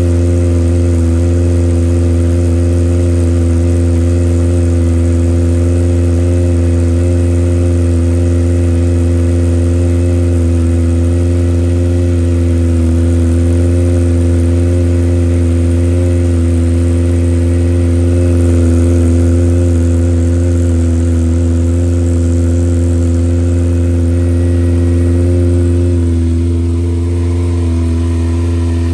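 Kawasaki ZX-25R's 249 cc inline-four idling steadily through a Yoshimura R77 full exhaust, warming up after a freezing cold start. Its note eases down slightly near the end.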